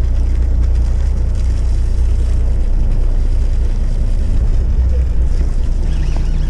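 Fishing boat's engine running steadily, a constant low drone with no change in pitch.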